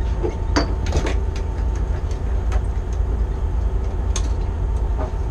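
Steady low rumble of a party boat's engine running, with a faint steady whine over it and scattered light clicks.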